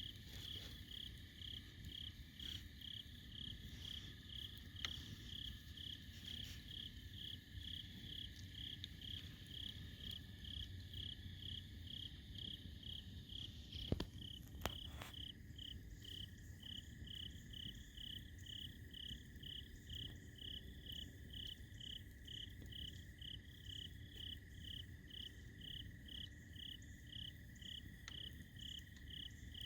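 Insects chirping in an even rhythm, about two chirps a second, over a steady high drone, with a low hiss of the campfire underneath. The fire gives a few sharp pops, the loudest about halfway through.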